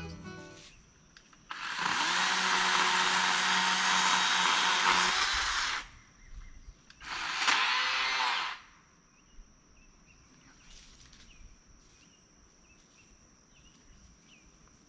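Electric chainsaw run in two bursts, about four seconds and then about a second and a half, its motor spinning up and stopping dead each time with no idle between. Faint insects chirp in the quiet that follows.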